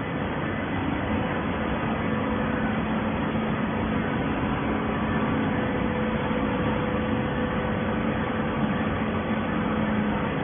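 Hydraulic baler's power unit running: steady machine noise with a low, even hum.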